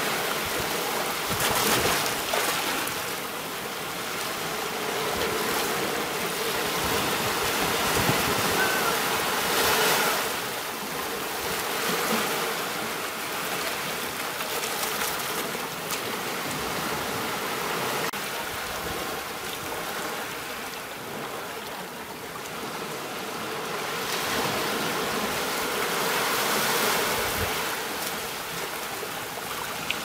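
Small ocean waves washing up a sandy beach, the surf swelling and easing every several seconds.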